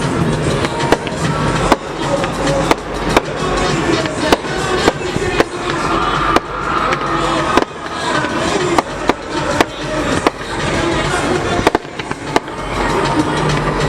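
Fireworks display: a run of sharp bangs and pops, irregularly spaced and often one to three a second, over music and people's voices.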